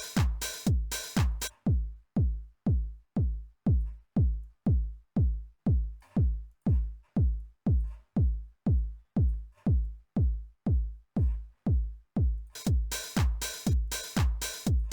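Roland TR-909 drum machine pattern, a steady four-on-the-floor kick about twice a second, each kick dropping in pitch, playing through the Waves SSL EV2 channel strip plugin. The bright high percussion on the beats drops out about a second and a half in, leaving the kick alone, and comes back in near the end.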